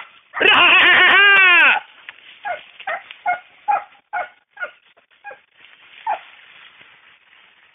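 Dogs crying out in the brush. A long loud cry rises and falls in pitch about half a second in, then comes a string of about ten short sharp yelps and barks.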